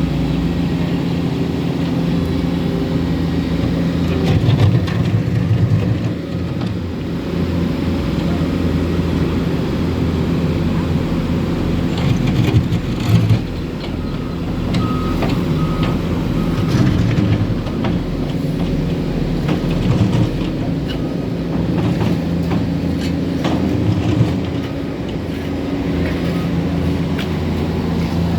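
Heavy diesel road-building machinery running steadily at asphalt paving work, its engines holding a low even note that swells now and then, with scattered metallic knocks and clanks.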